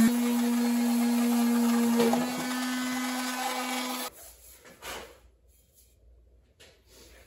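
Electric detail sander running with a steady motor whine as it sands a wooden hatchet handle, then switched off about four seconds in. A few faint knocks follow.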